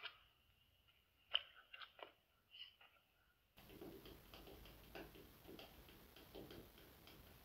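Faint scattered clicks: four or five sharp single clicks over the first three seconds, then a faint hiss with quick, irregular small ticks and clicks, about two or three a second.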